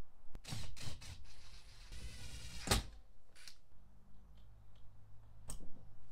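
Cordless power driver running in short bursts as it drives in the screws that hold a new speaker and bracket in a pickup truck's door, the longest run ending in a sharp click near the middle. Then a few light clicks from the wiring connectors being handled, with one sharper click near the end.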